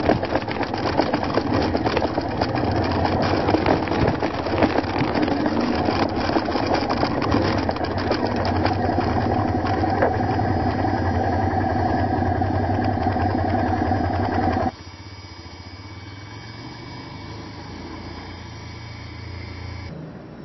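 Motorcycle engine running while riding a gravel road, buried under heavy wind and road noise. About fifteen seconds in the sound cuts abruptly to a much quieter, steady low engine hum.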